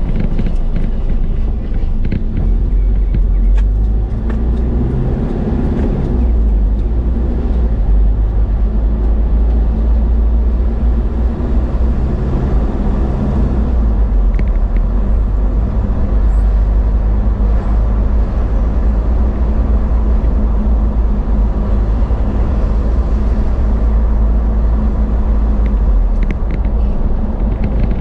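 A car driving along a paved road: a steady low rumble of engine and tyres, with an engine hum that shifts slightly in pitch now and then.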